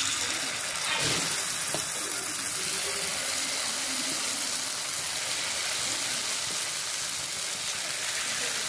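Hot oil sizzling steadily in a kuzhi paniyaram pan, an even frying hiss.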